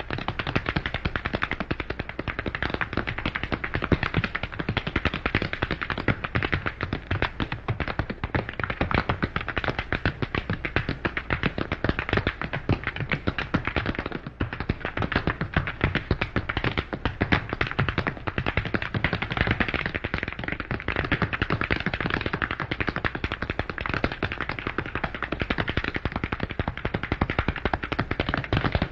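Fast tap dancing by two dancers: a dense, unbroken rattle of tap shoes striking a hard floor, thinning briefly about halfway through.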